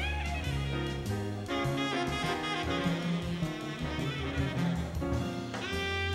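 Tenor saxophone soloing in a live jazz quartet, with sliding, bent notes over upright bass and drums.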